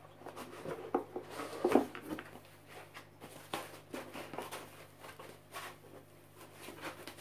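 Hands handling a cardboard box and its foam packing insert: irregular rustles, scrapes and light knocks as the foam insert is pulled out, with the loudest knock about two seconds in.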